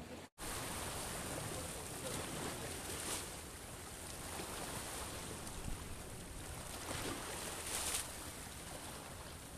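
Steady wash of sea waves and wind noise around a small fishing boat, swelling briefly about three seconds in and again near eight seconds.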